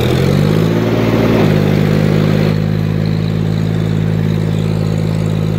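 John Deere tractor's diesel engine pulling away. Its revs rise over the first second and a half or so, then it runs at a steady speed.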